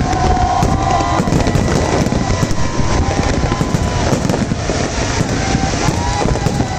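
Fireworks going off, a dense, continuous crackling of many rapid pops.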